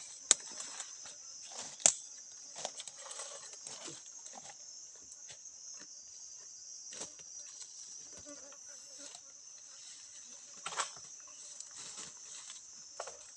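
Steady high-pitched insect chorus, with scattered sharp clicks and knocks; the two loudest knocks come within the first two seconds.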